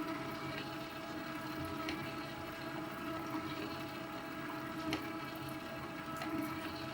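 Electric mixer running steadily on low speed, beating cream cheese batter after the last egg goes in, with a few light clicks.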